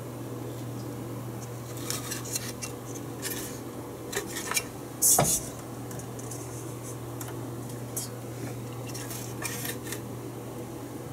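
A payphone circuit board being handled and turned over: scattered clicks, clinks and scrapes, with one louder knock about five seconds in, over a steady low hum.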